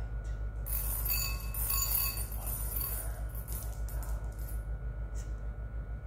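A steady low pulsing hum, with a bright metallic jingle that lasts about two seconds, starting about a second in.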